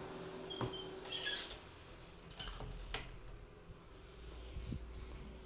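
Faint short squeaks and scrapes, then a single sharp click about three seconds in, with a fainter tick near the end.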